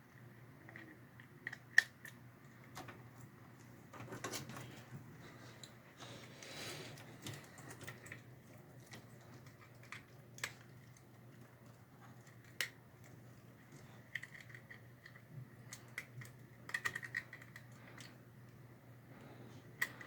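Scattered small clicks and rustles of hands working inside a desktop PC case, connecting cables to an SSD, over a faint steady hum. The sharpest clicks come about two seconds in and again around ten and twelve seconds.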